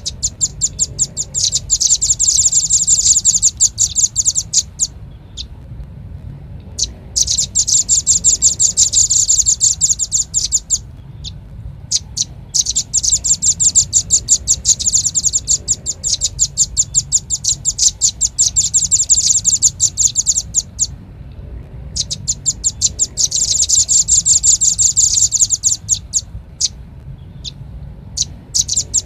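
Velvet-fronted nuthatch (red-billed nuthatch) calling: rapid runs of sharp, high chips in bouts of a few seconds, broken by short pauses, played as a bird-lure recording.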